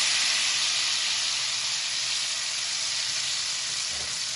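Hot tadka oil with whole red chillies, curry leaves and cumin sizzling on the surface of kadhi just after being poured over it: a steady hiss that slowly fades.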